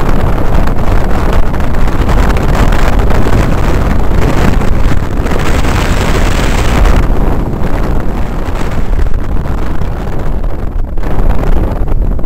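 Heavy wind rush buffeting the camera microphone of a motorcycle riding at speed, with the bike's engine under it; the rush eases slightly about seven seconds in.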